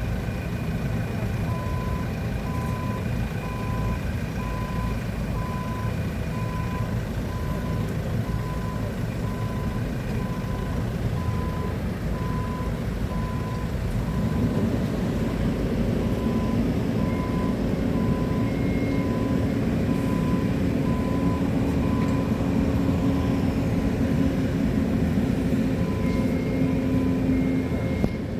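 A heavy machine's diesel engine runs with its reversing alarm beeping about once a second. About halfway through, the engine takes on load and gets a little louder, with a steady hum added.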